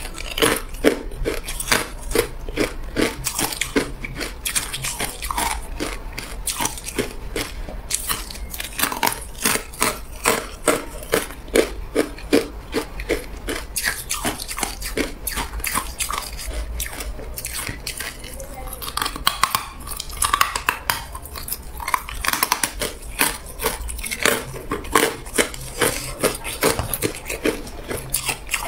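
Hard ice cubes being bitten and chewed, a rapid, continuous run of sharp crunching cracks, thinning briefly about two-thirds of the way through before picking up again.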